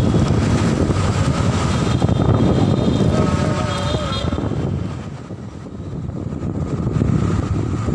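Wind rumbling on the microphone and street traffic noise, heard while riding an open e-bike through city traffic. The rumble eases for a moment about five seconds in.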